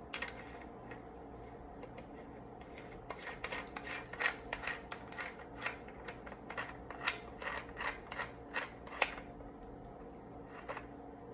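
Mechanical handling of a Micro Draco AK pistol: a quick run of small clicks and knocks, thickest in the middle few seconds, over a faint steady hum.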